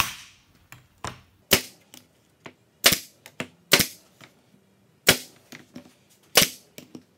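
Pneumatic stapler firing staples into a plywood frame: about six sharp snaps, roughly one every second or so, with lighter knocks between them.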